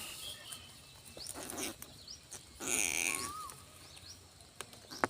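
A freshly snared greater bandicoot rat squealing in a few short bursts, the loudest about three seconds in.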